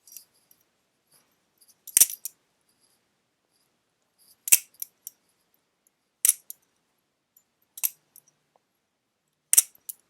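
Hinderer balisong (butterfly knife) being swung open and shut by hand, its handles and latch clacking together in sharp metallic clicks, five times, each a main click with a smaller one or two right after.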